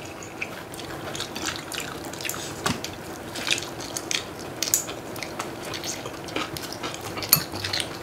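Wet eating sounds of stir-fried instant noodles being slurped and chewed, in many short irregular bursts, with scattered light clicks of chopsticks against cups and dishes.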